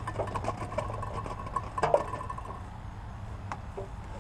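Microwave oven running with a steady low hum and a higher steady tone that stops about two and a half seconds in, with scattered light ticks and a sharper click about two seconds in.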